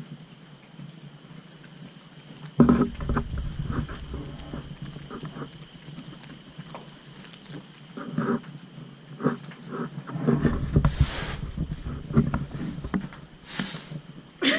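Footsteps and handheld-camera handling noise while walking over a debris-strewn concrete floor, irregular knocks and rustles with low rumbling on the microphone starting a few seconds in. Two short hissing bursts near the end.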